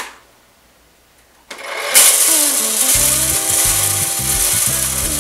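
Toy John Deere power trimmer's hand-pumped ratchet mechanism whirring as it spins its beaded cutting head: a steady rattling noise that starts about two seconds in, after a brief near silence, with background music under it.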